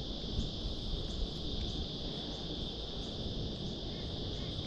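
Steady, high-pitched chorus of cicadas buzzing, with a faint pulsing above it and a low rumble underneath.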